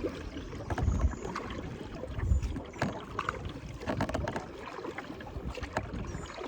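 Kayak paddle strokes in the water, with irregular splashing and dripping, and a couple of low thuds about a second and two seconds in.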